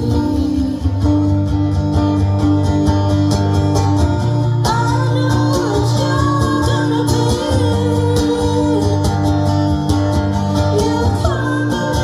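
Live song with a guitar strummed in a steady rhythm, and a singer's voice coming in about five seconds in and again near the end.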